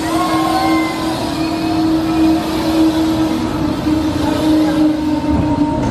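Soriani & Moser Sombrero ride running: a steady mechanical hum with one constant drone tone over an even rushing noise.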